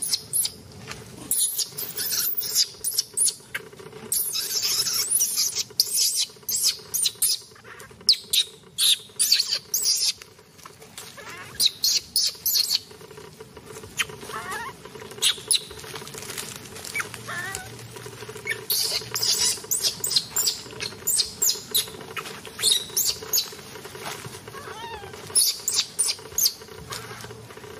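Macaques shuffling and scratching in dry leaf litter: quick irregular rustles and crackles, with a few short wavering squeaks about halfway through and again near the end.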